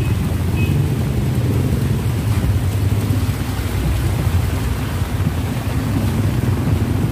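Steady low engine rumble from motor tricycles and a jeepney idling in a line of traffic, with a faint hiss of rain on the wet street.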